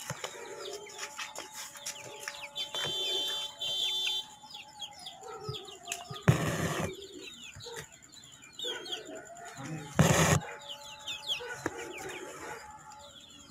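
Birds chirping and calling in the background, many short chirps throughout. Two brief, louder rustling swishes come about six and ten seconds in.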